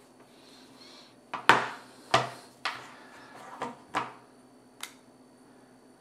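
About seven sharp clicks and light knocks, the loudest about a second and a half in, as an iPhone with a magnetic charging adapter and cable is handled and turned over in the hand.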